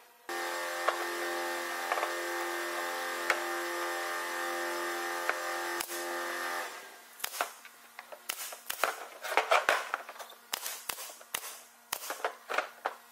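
A table saw's motor running with a steady hum for about six and a half seconds, then stopping; after that, a cordless nail gun firing a series of sharp snaps as it drives brads into a wooden frame.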